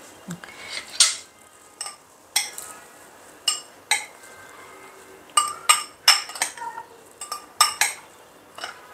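Metal spoon clinking against a glass while mint leaves and lime wedges are muddled in it. The clinks are sharp and come at an uneven pace, about fifteen of them, each with a brief high ring.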